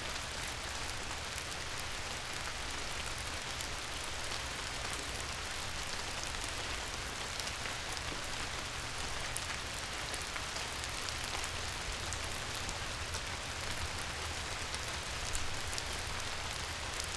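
Steady rain falling: an even hiss with scattered drop ticks, holding at one level throughout.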